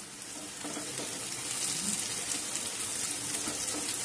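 Diced potatoes and sliced onions sizzling in hot oil in a non-stick kadai as they are stirred with a silicone spatula: a steady crackling sizzle that swells over the first second and a half, then holds.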